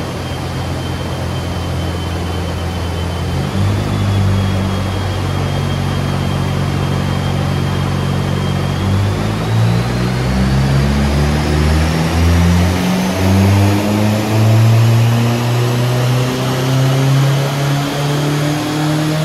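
VW Lupo's converted 1.8-litre 20-valve turbocharged four-cylinder (AUM) engine running on a rolling-road dyno through a full decat exhaust. Its revs are raised in steps and held at each one, and a high whine climbs steadily through the second half.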